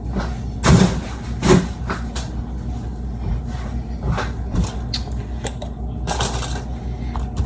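Kitchen items being moved around and set down on a counter: a few separate knocks and clatters over a steady low hum.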